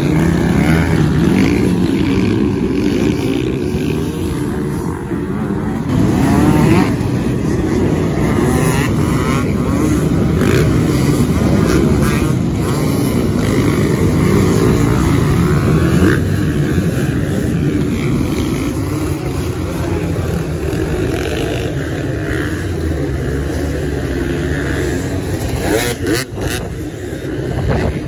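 Motocross bike engines running hard and revving up and down, their pitch rising and falling continuously, with a brief dip in level about two seconds before the end.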